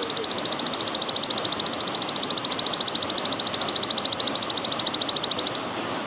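A belalang emas (golden grasshopper) calling: one long, high, rapid pulsing trill of about fourteen pulses a second that stops abruptly near the end, over steady trickling water.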